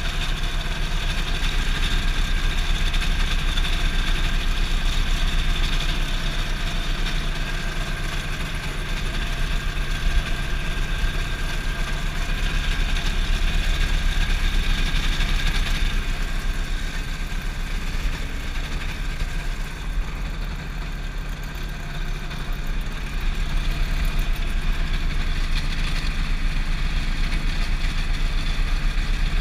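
Kolb FireFly ultralight's engine and propeller running steadily, a continuous drone with a slight dip in level a little past the middle.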